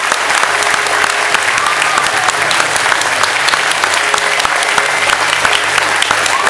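Large audience clapping loudly and continuously, dense applause.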